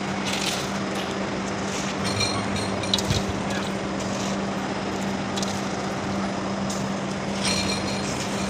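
A steady machine hum with a constant low tone over a broad noisy background, with a light knock about three seconds in.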